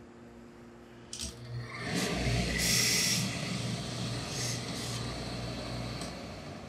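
Hose-fed steam iron pressing wool trousers: a click about a second in, then steam hissing as the iron goes down on the cloth, loudest in a burst around three seconds in and fading away toward the end, over a low hum.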